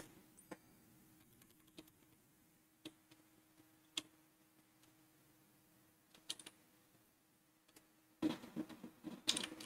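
Faint, isolated keystrokes on a computer keyboard, one every second or so, with a quick pair about six seconds in. Near the end a denser, louder stretch of clatter and noise begins.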